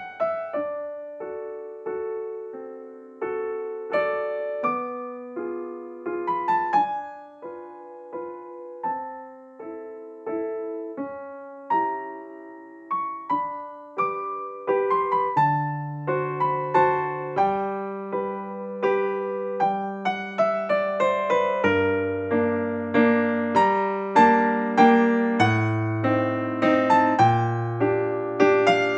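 Background piano music: a gentle melody of struck notes over chords, with a bass line coming in about halfway through and the playing growing fuller and louder.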